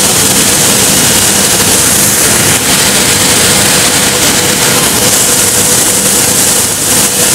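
Filler masterbatch extrusion line (Banbury mixer and single screw extruder) running: a loud steady machine hum with a held tone and a hiss over it, while the feeder screws draw a lump of mixed compound down into the extruder.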